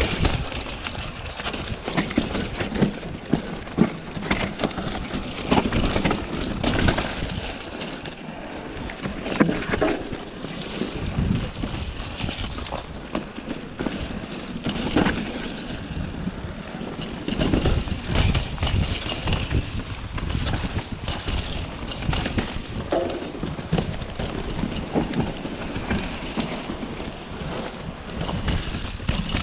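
Wind buffeting a chest-mounted action camera during fast movement, with irregular knocks and rattles throughout.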